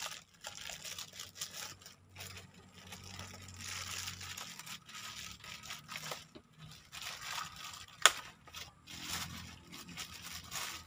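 Thin plastic bag crinkling and tearing as it is pulled apart and peeled off a plastic jerrycan, in irregular rustling bursts, with a single sharp click about eight seconds in.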